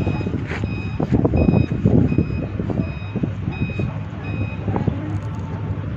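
A vehicle's reversing alarm beeping at an even pace, a little more than once a second, over a low rumbling noise. The beeping stops about four and a half seconds in.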